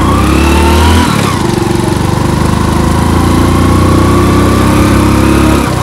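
Suzuki Hayabusa motorcycle's engine under way: it climbs in pitch as the throttle opens, drops about a second in as the rider eases off or shifts, then runs steadily.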